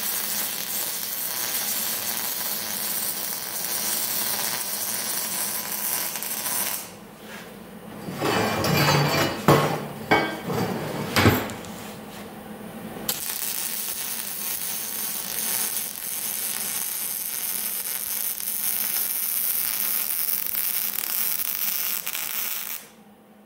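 MIG welder arc on steel pipe, a steady noise for about seven seconds. It stops for about six seconds while the steel pipe is handled, with a few metal knocks, then the arc runs again for about ten seconds and cuts off shortly before the end.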